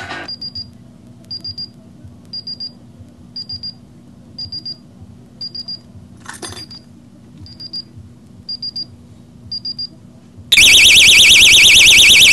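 Paradox Marine Magellan boat security system beeping in short high bursts about once a second, a countdown left to run because nobody disarms it, with a single click about halfway. Near the end the alarm goes off, and a very loud warbling siren takes over.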